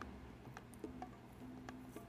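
Faint background music: soft short notes with light ticks.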